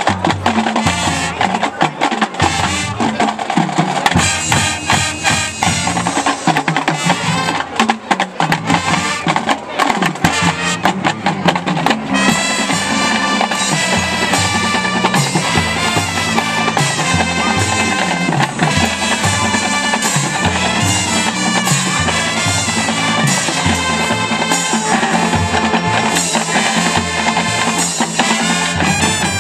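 Marching band playing on the field. The first twelve seconds or so are mostly drums and percussion with many sharp hits. Then held chords from the horns come in over the drums.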